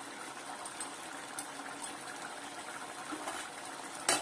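Chicken curry bubbling in a metal pot with a steady soft hiss, then near the end a metal lid clatters down onto the pot.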